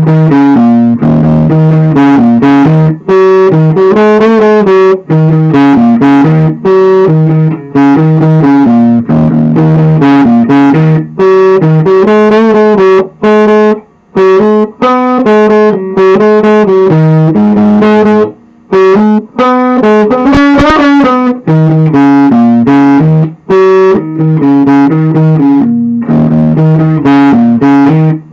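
Upgraded Squier Classic Vibe '60s electric guitar played through an amplifier speaker. It plays a run of melodic notes and chords in phrases separated by brief pauses.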